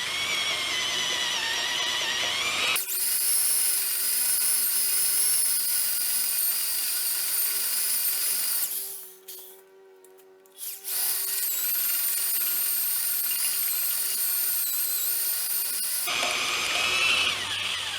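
Hand-held electric drill boring a 1/2-inch hole through thick steel plate with a freshly reground bit, the motor whining under load with a high squeal from the cutting edge. The drill stops for about two seconds roughly halfway through, then runs on.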